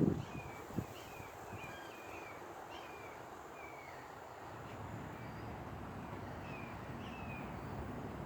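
A bird chirping: a run of short, high, falling chirps about two a second, thinning out after the first few seconds, with one faint knock about a second in.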